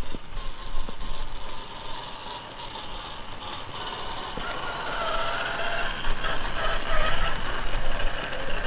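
Electric motor and gear whine of a Traxxas TRX-4 Sport RC crawler with a sensored brushless motor, driving up a muddy rock trail. The whine wavers in pitch with the throttle and grows louder from about halfway in.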